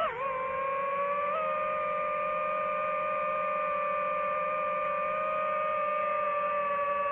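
DJI FPV drone's motors and propellers whining at a steady pitch, which dips sharply right at the start and rises slightly about a second in as the throttle changes.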